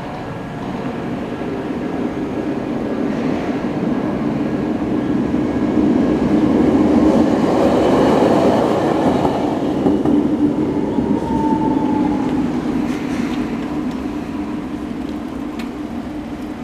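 Toei Arakawa Line tram passing over a level crossing: the rumble of its wheels and motors grows to a peak about halfway through and then fades away. There is a brief falling whine about eleven seconds in.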